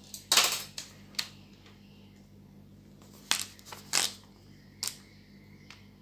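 A handful of sharp clicks and clacks as a hand screwdriver and screws are picked up and handled over the monitor's open plastic casing. The loudest is a short clatter in the first second, with single clicks about three and four seconds in.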